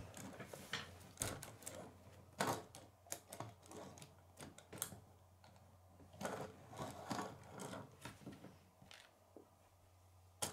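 A plastic K'nex car being handled and rolled on a wooden tabletop: irregular plastic clicks, rattles and light knocks of the wheels and parts against the wood, coming in several short clusters.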